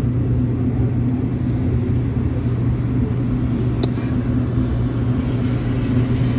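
A motor vehicle engine idling with a steady low hum. A single short click comes a little under four seconds in.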